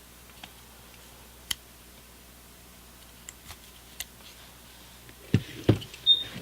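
Faint metal clicks of pocket multi-tools being handled and their Phillips screwdriver blades folded out. Two louder thumps come about five and a half seconds in, followed by a short high click.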